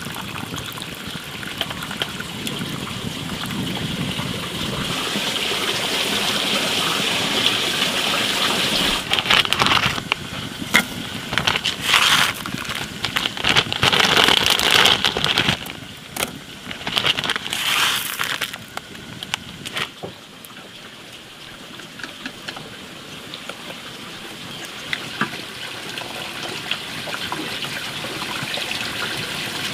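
Water streaming and splashing through a perforated stainless-steel strainer of instant noodles as it is dipped into a pot of hot water and lifted out to drain. There is a steady pouring hiss, with a run of louder, uneven gushes in the middle.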